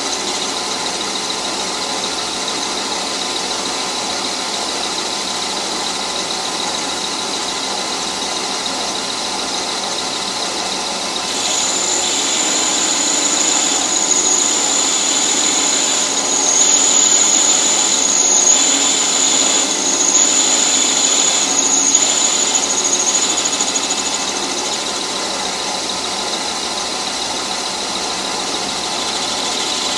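Metal lathe running while the cutting tool, fed by hand with the compound slide, turns a taper on a round bar. A high-pitched squeal from the cut comes in about a third of the way through and drops out some twelve seconds later.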